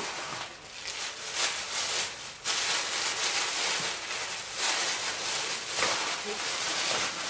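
Tissue paper rustling and crinkling as it is pulled out of a paper gift bag, in uneven bursts at first and denser and more continuous from about two and a half seconds in.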